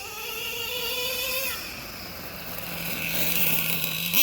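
Loud car engine and exhaust, a 3.3-litre, running and settling to a steady idle, then revved sharply once at the end.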